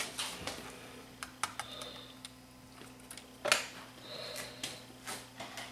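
Light clicks and taps from hands handling a plastic tape case and the opened VCR's cassette deck, with a louder knock about three and a half seconds in, over a faint steady hum.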